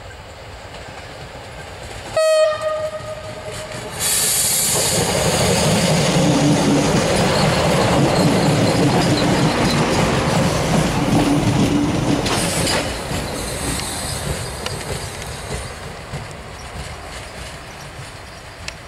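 VT628 diesel railcar sounds one long horn blast about two seconds in, the Rp1 'attention' warning. It then passes close by, its diesel engine and wheels loud for about nine seconds before the noise fades away.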